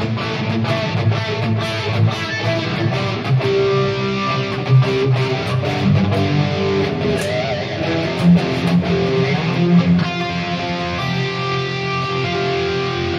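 Distorted high-gain electric guitar played through an amp model on a Headrush Prime modeler: a riff of short, sharply picked strokes, then longer held notes, with a change in the playing about ten seconds in.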